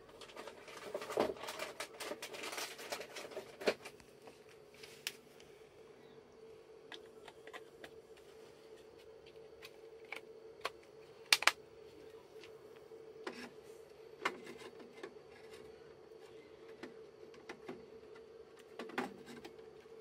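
Clicks, taps and scrapes of heatsinked FB-DIMM memory modules being handled and pressed into a Mac Pro memory riser card, with rustling near the start and a sharp double click about eleven seconds in. A steady low hum runs underneath.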